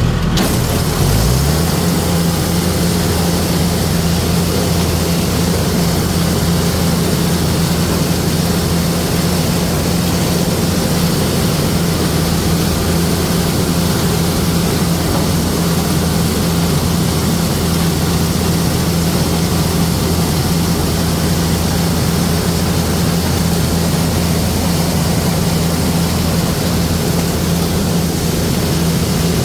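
Heavy farm machinery engine, likely a corn harvester's, running steadily under load; its pitch rises about a second in and then holds steady.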